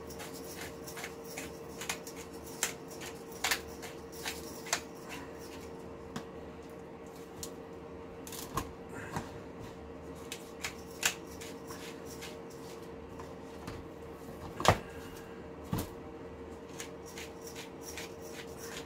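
Hand pepper mill grinding peppercorns: an irregular run of dry crackling clicks in spurts, over a steady faint hum. A louder knock comes about fourteen and a half seconds in, and another a second later.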